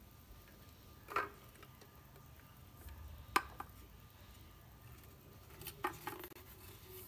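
A plastic baby bottle being handled: a few separate clicks and knocks, one about a second in, the sharpest near the middle and a short cluster near the end, over quiet room tone.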